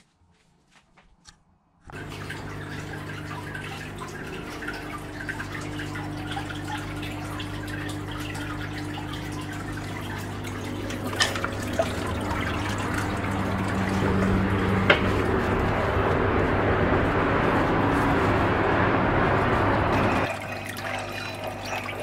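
Water from a homemade indoor waterfall trickling down clear fishing lines into its tank, with a steady low hum underneath. It starts suddenly about two seconds in, grows gradually louder, and drops off sharply near the end.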